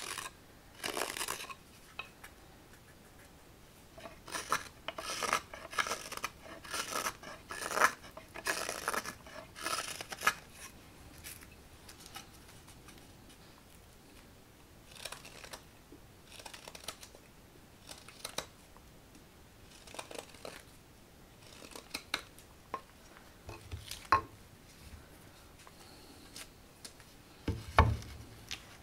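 Hook knife slicing shavings from the bowl of a green walnut ladle: short, crisp scraping cuts, close together for the first ten seconds, then single strokes a second or two apart. Near the end there are a couple of soft thumps.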